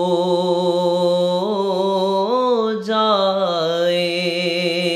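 A man's solo voice singing a devotional salam (naat) unaccompanied. He draws the syllable "ho" out into one long held note, bending upward twice in ornamented turns before settling back on the same pitch.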